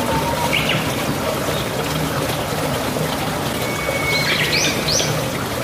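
Running water trickling steadily, with birds chirping over it. One short chirp comes about half a second in, then a thin whistle and a quick run of rising chirps around four to five seconds in.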